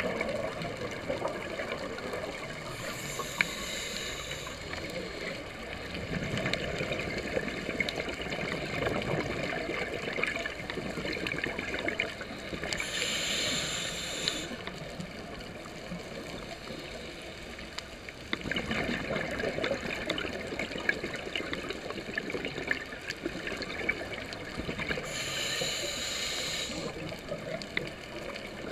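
Scuba breathing heard underwater through a GoPro housing: three hissing inhalations through a regulator, about twelve seconds apart, each followed by several seconds of bubbling exhaust. A faint crackle runs underneath.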